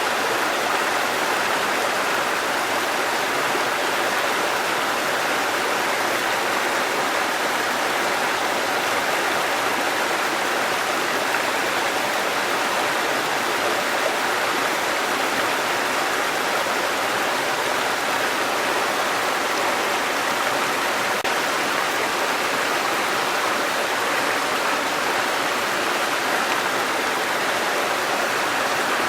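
Waterfall and stream water rushing steadily, an even, unbroken splashing roar.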